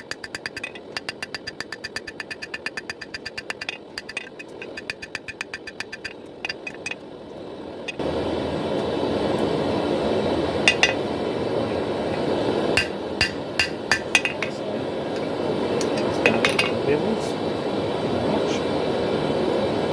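Hammer striking hot steel on an anvil in a fast, even rhythm of about three to four ringing blows a second. About eight seconds in, this gives way abruptly to a louder steady rushing noise, with a few scattered metallic clinks.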